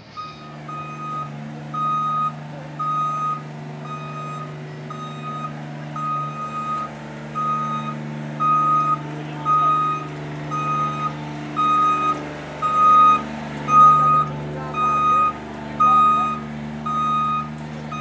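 Scissor lift lowering its platform, its descent alarm beeping a little under once a second over a steady low hum.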